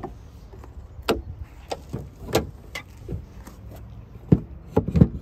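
Irregular clicks and knocks of a Tesla Supercharger connector being handled and plugged into the charge port of a Tesla Model X, over a low steady hum. The loudest knocks come near the end.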